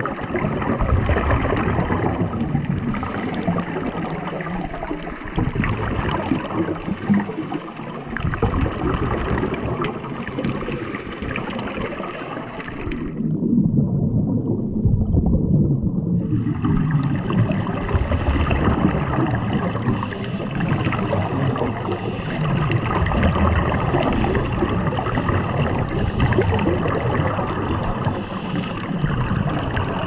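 Underwater sound of scuba diving: regulator exhaust bubbles gurgling over a steady rush of water noise, heard underwater. About halfway through the sound turns dull for a few seconds, then comes back full.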